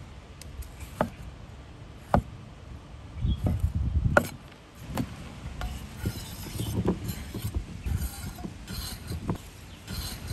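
Kitchen handling sounds: scattered sharp knocks and clicks of utensils and cookware, with stretches of low rumbling and brief rustles in between.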